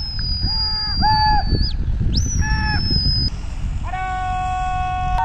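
A high whistle held, dropping away and then swooping up again, with several short honk-like toots beneath it; near the end a long, steady horn-like note. Wind rumbles on the microphone throughout.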